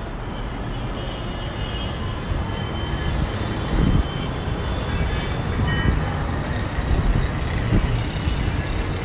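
City traffic heard from high above the streets: a steady mixed rumble of cars, trucks and buses, with faint short horn toots here and there.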